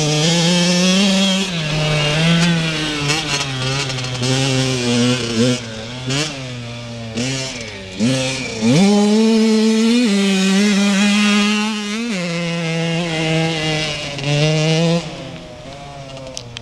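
Kawasaki KX85 single-cylinder two-stroke motocross bike being run in, its revs climbing and dropping again and again through the gears, with a sharp climb about nine seconds in. It fades off near the end as the bike rides away.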